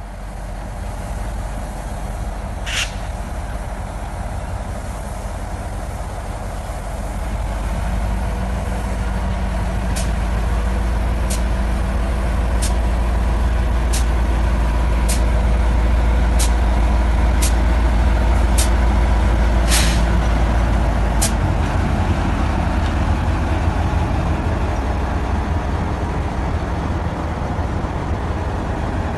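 Two ALCo RSD16 diesel locomotives rolling slowly past at close range, their engines' deep rumble growing louder as they come alongside. A series of short sharp sounds comes about once a second in the middle of the pass.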